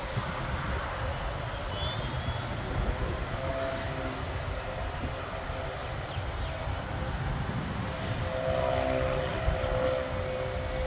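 Single-engine propeller plane's engine running on its takeoff roll, with a steady engine tone that gets stronger about eight seconds in.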